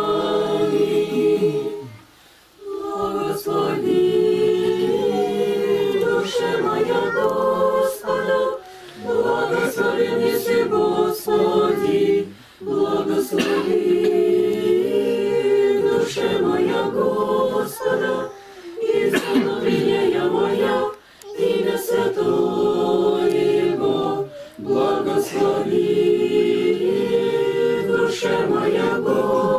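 A congregation of adults and children singing an Orthodox liturgical chant a cappella, in phrases of a few seconds with short pauses for breath between them.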